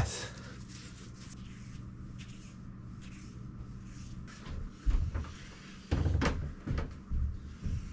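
A low steady hum, then a few short knocks and bumps of handling against wooden cabin fittings, starting about five seconds in; the loudest comes about a second after the first.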